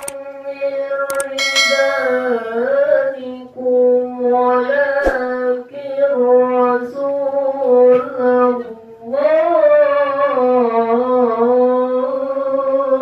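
A male qori reciting the Quran (tilawah) into a microphone in long, held, melodic phrases with wavering ornamental turns, three phrases with short breaths between them. There are two sharp clicks, one about a second in and one about five seconds in.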